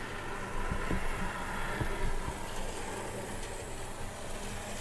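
Brass HO scale electric locomotive running along model railway track: a steady hum from its small motor and gears, with a few faint clicks about one and two seconds in. It is running with its short circuit cured.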